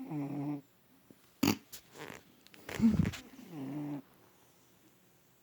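Domestic cat snoring in its sleep: a drawn-out pitched snore at the start and another about three and a half seconds in, with a louder, rougher snore around three seconds. A sharp knock about a second and a half in.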